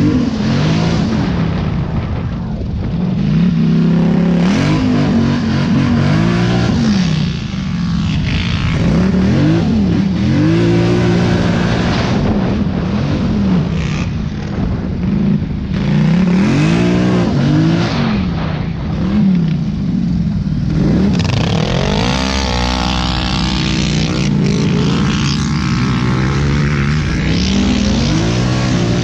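ATV engine heard from the rider's seat, revving up and dropping back again and again as the quad is ridden over sand trails. A rush of wind noise comes in briefly about three-quarters of the way through.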